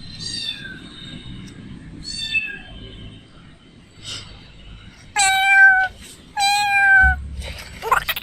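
A cat meowing: two faint meows, then two loud, long meows about a second apart, each holding a steady pitch that sags slightly at the end. A short rising glide follows near the end.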